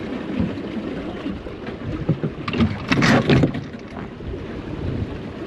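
Wind buffeting the microphone over water rushing along the hull of a small trailer sailer under sail in a fresh breeze, with a louder burst about three seconds in.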